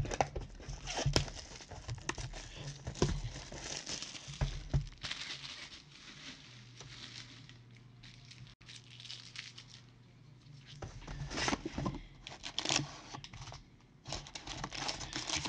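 Packaging of Panini Prizm football hobby product being torn open and crinkled by hand, in irregular bursts of rustling and tearing.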